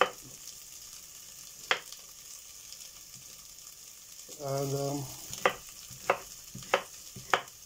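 Chef's knife chopping courgettes on a wooden chopping board: six sharp chops, two spaced apart early, then four in quick, even succession near the end. Throughout is the steady sizzle of onions frying in the pan.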